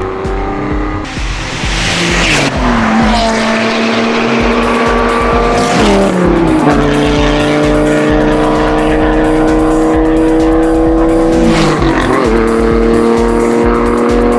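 Sports cars passing at speed one after another, each engine note sliding down in pitch as the car goes by and then holding steady as it pulls away, three times.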